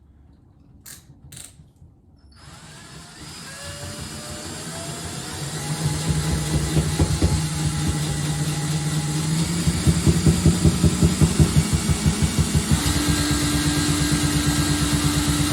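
Two clicks, then a shake table's motor spinning up with a rising whine and running steadily while the K'NEX model building shaking on it rattles in a rapid rhythm. Near the end the hum steps up to a higher pitch as the shaking speed is raised.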